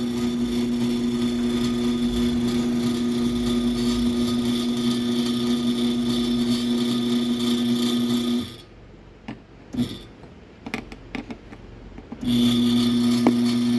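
Raynor 250-7 garage door opener's motor running with a steady hum and a high whine. It stops about eight seconds in, a few clicks follow, and it starts running again about twelve seconds in.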